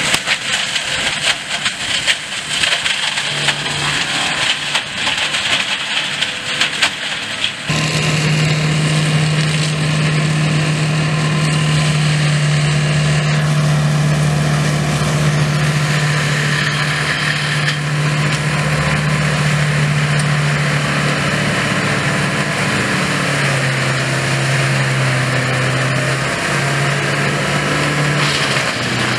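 Tractor-driven Kraffter forestry mulcher shredding brush and branches: a dense, clattering rattle of wood being chewed by the rotor. About eight seconds in it changes to a steady drone of the tractor engine and spinning mulcher rotor, whose pitch dips a few times near the end as it takes load.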